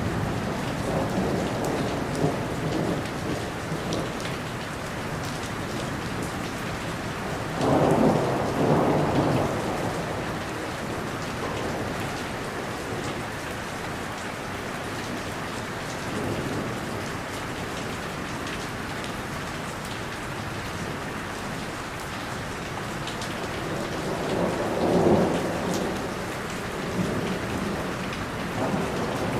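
Steady heavy rain with scattered drips, and thunder rumbling twice, about a quarter of the way in and again near the end.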